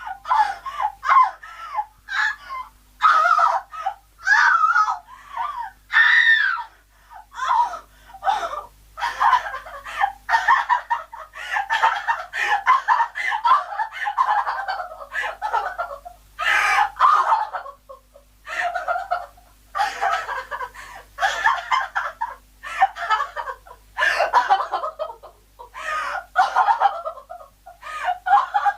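A woman crying hysterically: broken, sobbing wails with short gasping breaks between them, running into one longer unbroken wail about halfway through.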